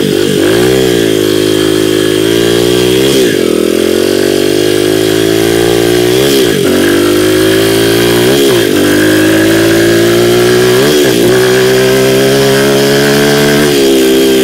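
Small dirt bike engine running under way. The revs climb, dip sharply and climb again, about five times.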